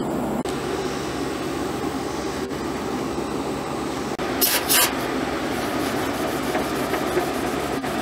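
Two short hisses of aerosol brake cleaner being sprayed, about four and a half seconds in, over a steady low hum.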